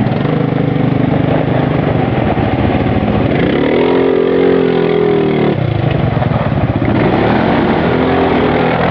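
500 cc ATV engine running, its pitch rising and falling as it revs up and eases off about halfway through, with a second, shorter rev near the end.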